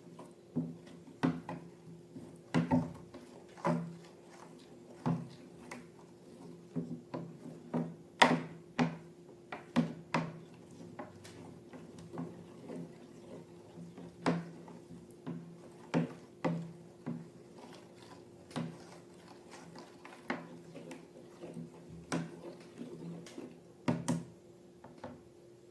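Irregular sharp clicks, taps and small squelches from hands working slime and balloon materials, over a steady low hum.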